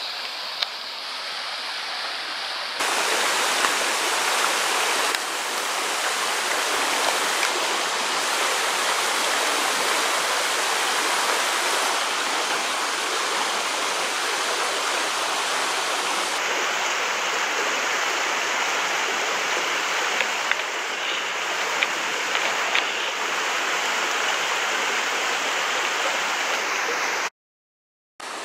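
A shallow, rocky mountain stream running over riffles and around rocks: a steady rush of water. It gets louder about three seconds in and drops out for a moment near the end.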